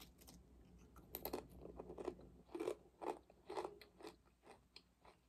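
Close-up chewing of a Pringles Wavy potato chip: a quiet run of irregular crunches that thin out and fade toward the end.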